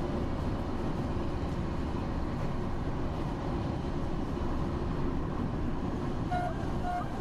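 Steady running rumble of a moving vehicle, with a few short high tones near the end.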